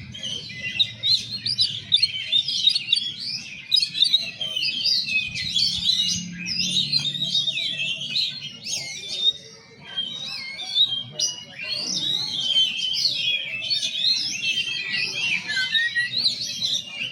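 Male white-rumped shama singing a continuous, varied song of rapidly changing whistled phrases.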